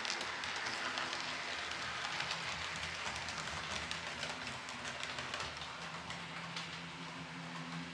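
H0-scale model train, a locomotive pulling one coach, running along the layout track. The wheels make a steady fine rattle and clicking on the rails, with a low motor hum that grows stronger near the end.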